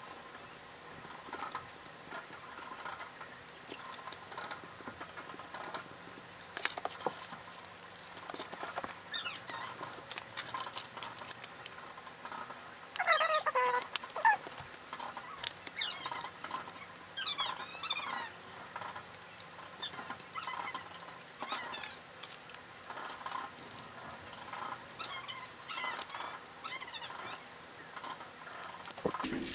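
Small clicks and light rustling of paper and card price tags being handled and written on with a pen, with a few short squeaks that sweep down in pitch, the loudest about 13 seconds in.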